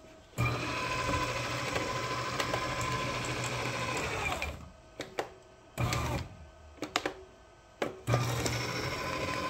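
Member's Mark auto-feed micro-cut paper shredder's motor running steadily for about four seconds, then stopping, with a few short spurts before it starts running again near the end. The shredder is jammed with too many sheets grabbed at once, and its motor is being started and stopped from its control buttons.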